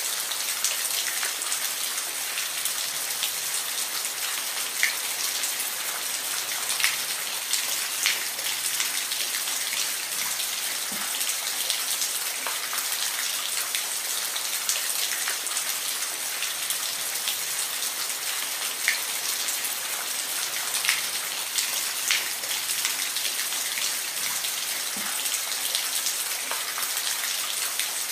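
Steady rain falling, a constant even hiss with scattered louder individual drops ticking through it.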